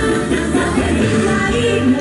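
Live band music with singing, recorded from far back in a concert crowd.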